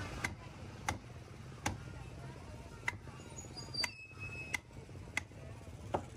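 A wooden mallet striking the back of a long knife, driving the blade through a flathead grey mullet on a wooden chopping stump to cut it into steaks. About eight sharp knocks come at uneven intervals, each under a second or so apart.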